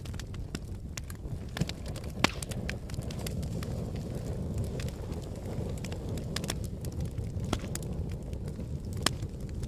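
Wood fire burning in a fireplace, crackling with many irregular small snaps over a steady low rumble, with sharper pops about two seconds in and near the end.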